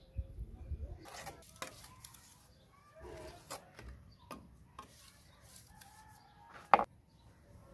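Bricklayer's steel trowel scraping and tapping on bricks and wet cement mortar, with a sharp knock near the end. Chickens cluck in the background.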